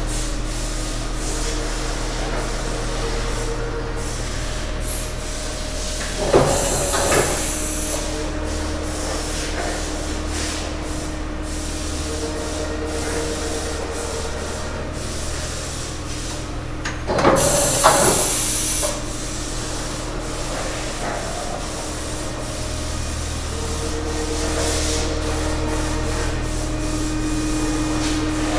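Mori Seiki SV-500/40 CNC vertical machining center running, its spindle and axis drives giving a steady hum with a higher whine that comes and goes. Twice, about a quarter and two-thirds of the way through, a louder hiss lasts a second or two.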